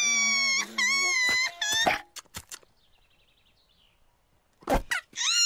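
Cartoon sheep bleating: several high, wavering bleats in the first two seconds, then a short thump about four and a half seconds in, and a long bleat starting just before the end.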